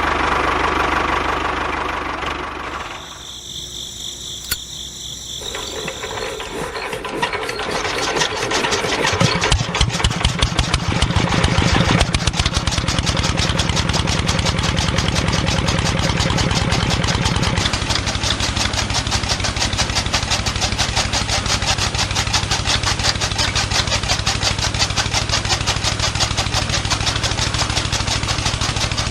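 Small engine, likely on a homemade mini tractor, starting up about a quarter of the way in and then running steadily with rapid, even firing pulses.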